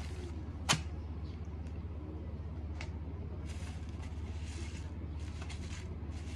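Hands handling rice paper wrappers and a wooden plate on a wooden chopping board: a sharp click about a second in, a lighter tap later, then soft rustling, over a steady low hum.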